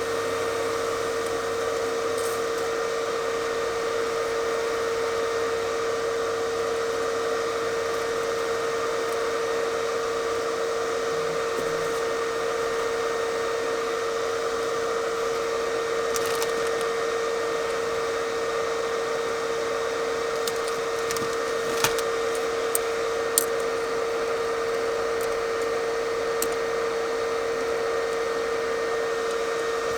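Steady machine hum with one constant mid-pitched tone over an even hiss, like a small appliance or fan running, with a few faint clicks about two-thirds of the way through.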